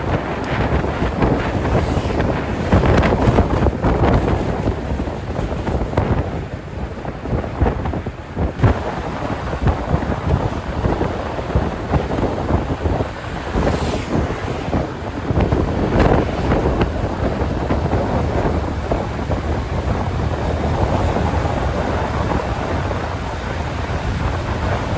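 Wind buffeting the microphone of a camera riding on a moving motorbike, a loud, gusty rush over a low rumble.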